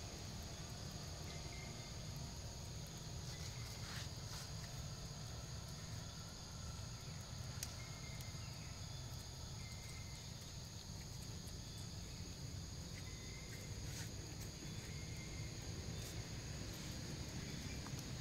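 Outdoor forest ambience: a steady high drone of insects over a low rumble, with a few faint short chirps and occasional small clicks.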